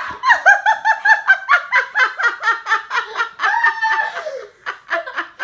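A person laughing hard in a fast run of high-pitched 'ha-ha-ha' bursts, about four or five a second, trailing off near the end.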